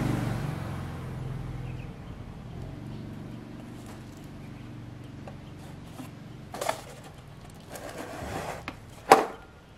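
Handling knocks as a small petrol engine and water pump head are fitted together and moved on their stand. There is a clunk about seven seconds in, then rustling, then a loud sharp knock just after nine seconds.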